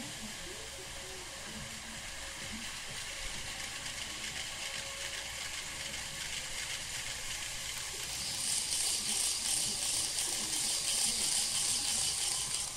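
N-scale model train running on its track: a thin electric motor whir with rapid fine clicking of the small wheels. It grows louder about eight seconds in, as if passing close, then drops off just before the end.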